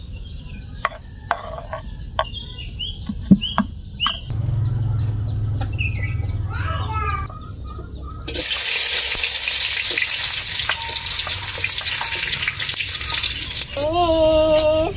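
A few clicks and knocks, then about eight seconds in a sudden loud sizzle as ingredients go into hot oil in a wok. The frying runs on steadily with stirring.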